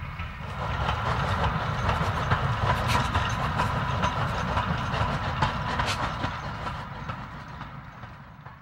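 Early steam locomotive, a replica of Stephenson's Rocket, running past with its wagons: a steady rumble and rattle of wheels on the rails with scattered sharp clicks. It fades away over the last couple of seconds.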